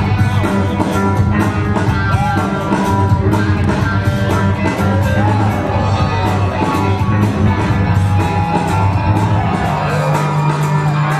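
Loud music played through the venue's sound system for the dancers, with a steady drum beat and heavy bass. A few voices call out over it.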